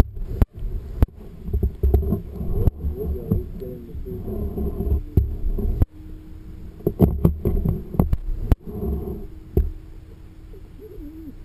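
Underwater sound picked up by a submerged camera: low rumbling water noise with repeated knocks and clicks against the camera housing, and a steady hum through the middle stretch.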